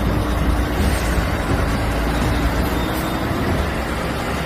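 Heavy semi-truck's diesel engine pulling a loaded lowboy trailer away, a steady low rumble that eases off as the rig moves away.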